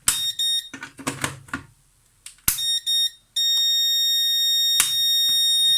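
Power station's built-in beeper sounding a low-battery alarm: short paired high-pitched beeps, then a long unbroken beep from just past halfway, as a 500-watt halogen lamp load pulls the nearly flat battery down and the inverter is about to cut out. A few sharp clicks, the first as the lamp is plugged in.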